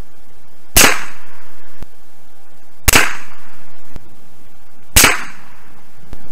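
Savage 110 bolt-action rifle in .223 Remington firing three shots, about two seconds apart, each a sharp crack with a short echoing tail.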